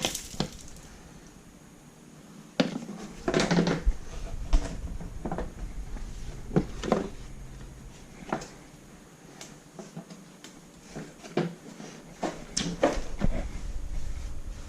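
Irregular knocks, clicks and clatter of tools and parts being handled, with a denser stretch of clattering a few seconds in and again near the end.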